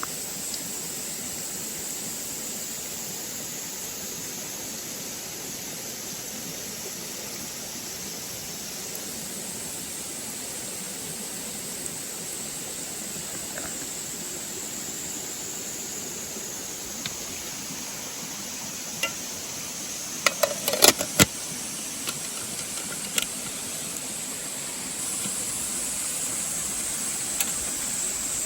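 Wood bonfire crackling: scattered sharp pops, with a quick cluster of several about two-thirds of the way through, over a steady rushing hiss.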